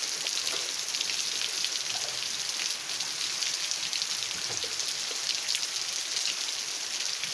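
Steady, heavy rain falling, a dense patter of individual drops over a constant hiss.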